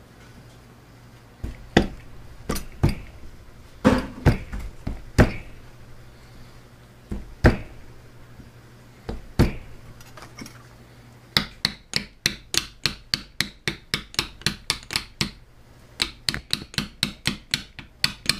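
Hammer blows on a steel tube used as a driver, tapping a tight-fitting part down onto a tool and cutter grinder spindle. It starts as a dozen or so scattered single blows, then about halfway through becomes a quick, even run of light taps, about three a second, with a short pause before a second run.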